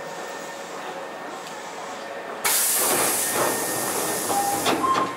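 Steady hum of the stopped Hankyu 7300 series train, then about two and a half seconds in a sudden loud burst of compressed-air hiss lasting about two seconds, the pneumatic doors closing. Knocks and two short beeps follow near the end.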